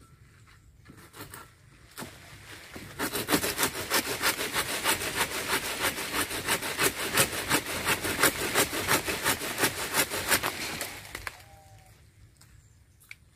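Hand saw cutting through a jackfruit branch in quick, even strokes, starting about three seconds in and stopping about two seconds before the end.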